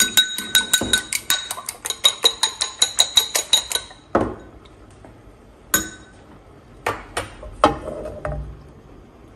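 A fork beating eggs in a ceramic bowl: fast, even clicking of the fork against the bowl, about seven strokes a second, with a ringing note from the bowl. The beating stops about four seconds in, followed by a few separate clinks and knocks.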